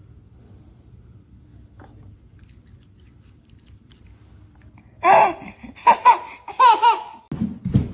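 Low steady hum, then about five seconds in a string of short, high-pitched vocal bursts that bend in pitch, laugh-like, lasting about two seconds.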